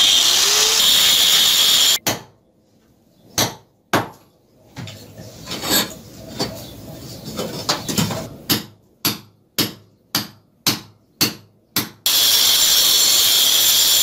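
Angle grinder cutting into a brick wall for about two seconds, then stopping. Then a run of about a dozen sharp hammer blows on a chisel, coming about two a second by the end, chasing out a channel for a drain pipe. About two seconds before the end the grinder cuts again.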